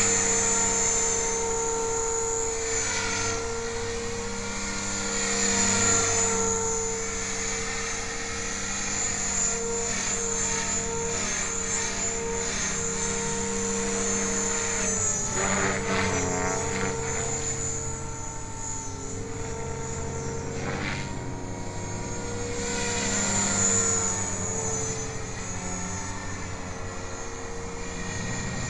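Align T-Rex 500 electric RC helicopter flying fast forward passes: a steady whine from the motor and rotor head. It swells in loudness twice as the helicopter comes nearer, and its pitch dips and recovers briefly a little past halfway.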